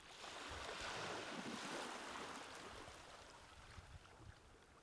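Water spray hissing and splashing around a foiling windsurf board. It starts suddenly, is loudest about a second or two in, then fades away.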